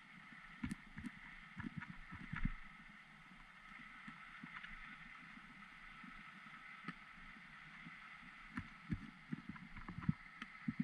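Faint, muffled water noise with irregular low knocks and thumps, several close together about two seconds in and again near the end.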